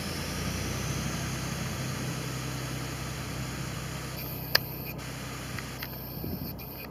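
SNCF X2200-series diesel railcar's engine running with a steady low drone as it pulls away. A single sharp click about four and a half seconds in.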